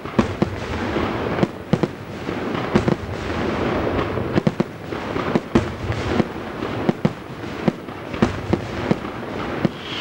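Aerial firework shells bursting overhead in quick, irregular succession, dozens of sharp bangs over a continuous noisy background.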